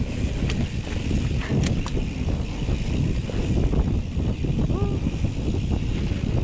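Mountain bike ridden along a rough dirt singletrack: a steady rumble of tyres, frame and wind on the microphone, with a few sharp clicks in the first two seconds.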